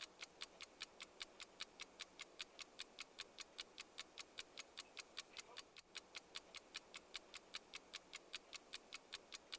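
Clock ticking in a steady tick-tock rhythm, about four sharp ticks a second.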